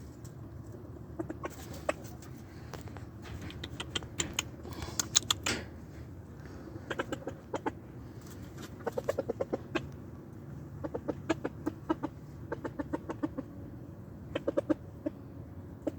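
Game chickens clucking in short runs of quick notes, several clusters through the stretch. About four to five seconds in comes a run of sharp clicks, the loudest part.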